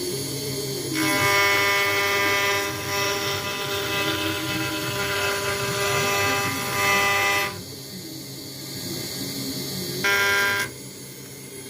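CNC router spindle cutting an acrylic sheet: a steady machine whine made of many stacked tones. It grows louder about a second in, drops back about two-thirds of the way through, and swells briefly again near the end.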